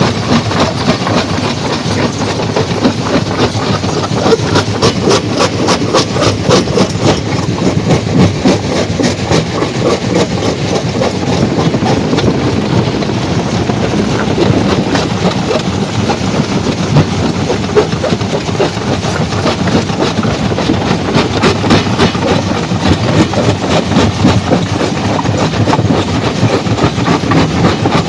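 Stone crushing machine running, with rock clattering and knocking against it in a dense, irregular stream of impacts.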